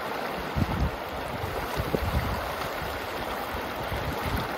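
Fast river current rushing past, with gusts of wind buffeting the microphone in low, irregular thumps.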